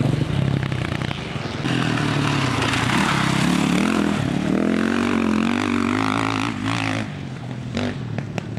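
Dirt-bike engines revving hard as riders accelerate through the corners of a dirt track, the engine note climbing and dropping with the throttle. A few sharp ticks come near the end.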